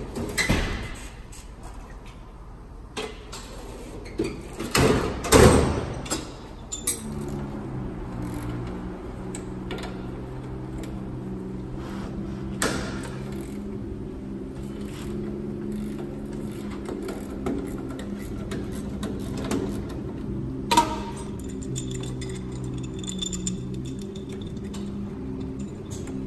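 Metal tools clanking and knocking in a steel tool chest drawer for the first few seconds, the loudest clatter about five seconds in. Background music then plays, with a few single sharp clicks from wrench work on the truck's steering linkage.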